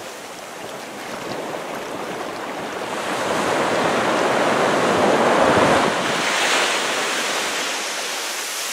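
Small surf breaking and washing up the sand at the water's edge. The wash swells to its loudest about five to six seconds in, then eases back to a steadier hiss.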